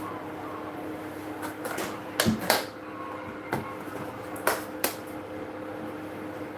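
Scattered sharp knocks and clicks of kitchen items being handled, the loudest cluster about two seconds in and another pair near four and a half seconds, over a steady low hum.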